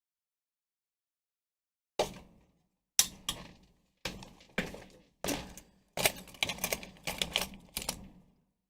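A series of sharp clicks and light knocks from small hard objects being handled at a workbench. They start about two seconds in, sparse at first, then come thick and fast for the last couple of seconds before stopping.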